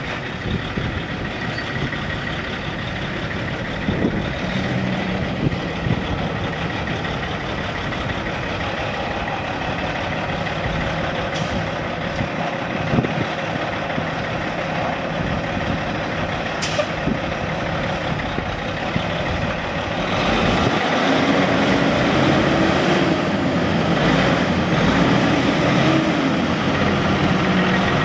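Semi truck's Caterpillar C15 six-cylinder diesel engine running steadily, with a few short sharp clicks. About twenty seconds in it gets louder, its pitch rising and falling.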